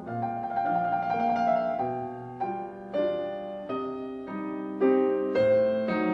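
Slow solo piano music: single notes and chords struck at an even, unhurried pace, about one every half second, each left to ring and fade.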